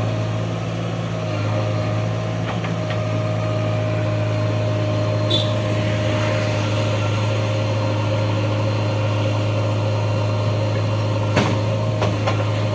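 An engine running steadily with a deep, even hum, a few short sharp clicks or knocks near the end.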